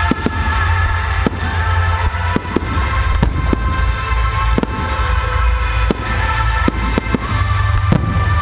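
Aerial firework shells bursting, about a dozen sharp bangs at irregular intervals, over loud music with a heavy bass that is played for the show.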